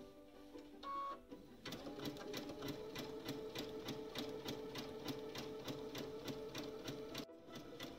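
Brother Innov-is VM6200D computerized sewing machine stitching around the edge of fabric appliqué in a fast, even rhythm of needle strokes, starting a couple of seconds in and stopping briefly near the end before it carries on. A short tone sounds about a second in.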